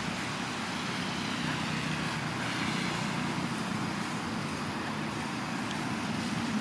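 Steady background noise with a faint low hum, unchanging, with no distinct event.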